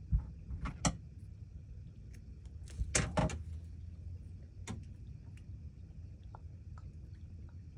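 Hand-handling noises at a fly-tying vise: a few brief rustles and knocks, the loudest cluster about three seconds in, over a steady low background rumble.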